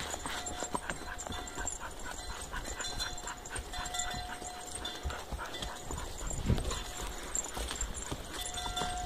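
Hooves of a pony and a horse walking on a dirt woodland trail, irregular clip-clop footfalls, with one stronger dull thump about six and a half seconds in.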